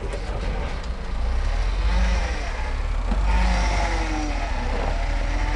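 1977 Ford F-250's engine pulling at low revs as the truck crawls through a deep, frame-twisting rut on a dirt trail, with a steady low rumble and one small knock about three seconds in.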